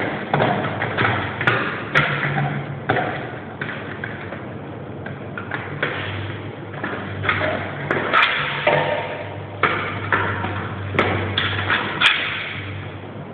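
Irregular knocks and thumps at uneven intervals over a steady low hum.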